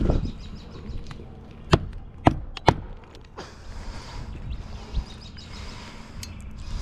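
Three sharp knocks, about half a second apart, over steady outdoor background noise.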